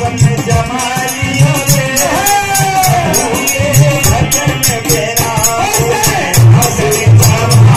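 Live devotional bhajan: a man's voice singing a gliding melody over harmonium, with regular hand-drum strokes and a steady rattling jingle keeping the beat.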